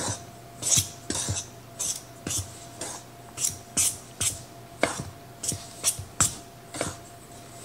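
A utensil scraping and clicking against a metal mixing bowl in short, irregular strokes about twice a second, stirring buttermilk into flour and shortening for a biscuit dough.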